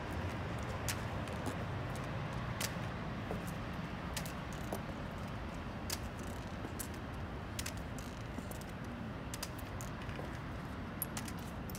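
Footsteps of a person walking on forearm crutches in high heels: irregular sharp taps of heels and crutch tips on a paved walkway, over a steady low background noise.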